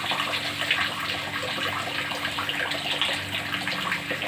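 Pieces of bird meat frying in hot oil, the oil sizzling steadily.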